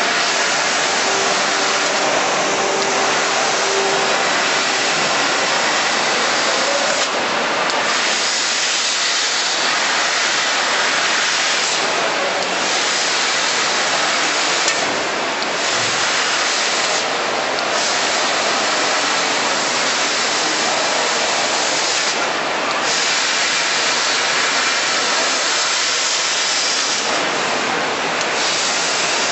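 Steady hiss of the assist-gas jet from a 3D laser cutting head cutting sheet metal. The hiss thins out briefly about six times, at pauses between cuts.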